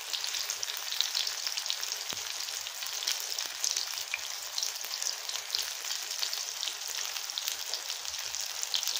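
Besan-battered paneer pakoras deep-frying in hot oil in an iron kadhai: a steady sizzle full of small crackles and pops.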